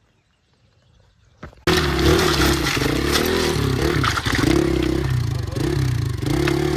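Hero XPulse motorcycle engine running, its revs rising and falling. The sound starts suddenly, loud, a little under two seconds in, after a near-quiet start.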